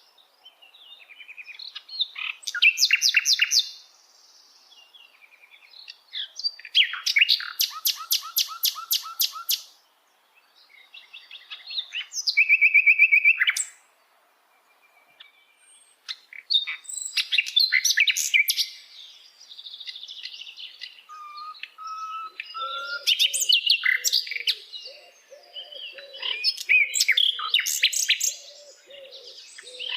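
Sikatan londo flycatcher singing: bursts of rapid, high trills and chirps separated by short pauses. In the second half a lower, softer repeated call runs underneath the song.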